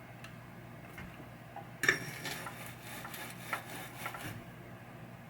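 A burst of small hard clicks and clatter lasting about two and a half seconds, opening with one sharp click: tools working a loosened capacitor free from a pinball power supply circuit board during desoldering.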